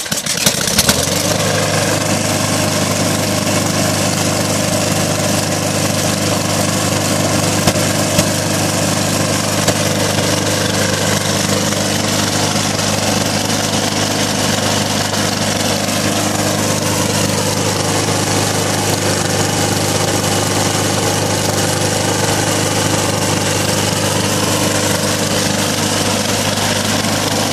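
Small lawnmower engine starting about a second in and then running steadily on gasoline vapor fed into its air intake from a homemade vapor chamber, with the normal fuel line disconnected.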